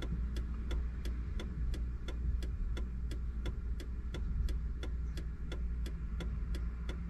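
A car's indicator relay ticking steadily, about three ticks a second, with the hazard or turn signals flashing in a stopped car. A low steady hum sits underneath.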